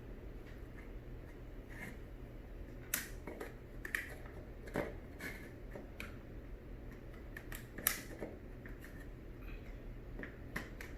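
Light, scattered clicks and clacks of plastic vertical blind slats being handled and clipped back onto the headrail, with a few sharper clicks about three, four, five and eight seconds in, over a faint steady hum.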